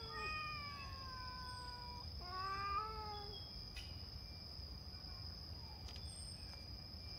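Stray cat meowing twice: a long, drawn-out call of about two seconds that slowly falls in pitch, then a shorter call just after; the second half holds no calls.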